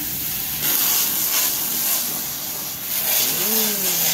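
Davis ProPet Washer sprayer spraying shampoo-mixed water into a dog's coat at close range: a steady hiss that grows louder about half a second in.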